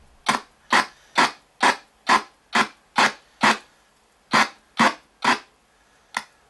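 RTC ghost box (spirit box) sweeping through radio stations, giving short choppy bursts of static and radio fragments about two a second, with a short pause about four seconds in.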